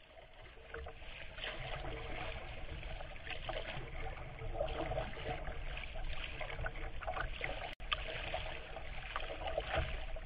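Water splashing and trickling around a kayak, sounding muffled and dull, with a brief dropout about eight seconds in.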